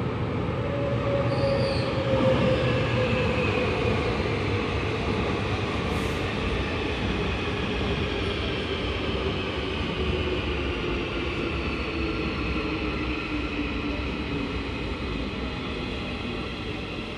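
Marmaray E32000 electric multiple unit pulling into an underground station and braking, its whine falling steadily in pitch as it slows, over a rumble of wheels on rail. Loudest a couple of seconds in, then gradually easing off as the train comes nearly to a stop.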